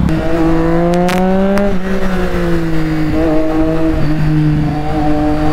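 Triumph Street Triple's inline three-cylinder engine pulling away under throttle. The pitch climbs, drops once at a gear change about one and a half seconds in, holds fairly steady, then starts climbing again near the end.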